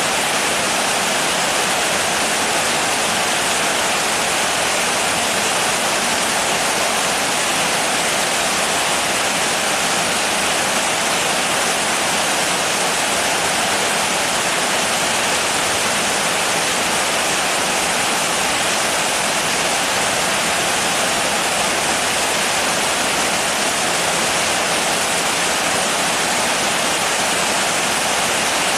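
Steady rain: an even, unbroken hiss with no single drops standing out and no change in level.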